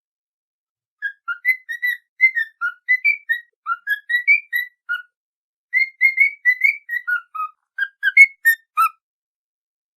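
A whistled tune: two phrases of quick, short notes hopping up and down in pitch, with a short pause between them.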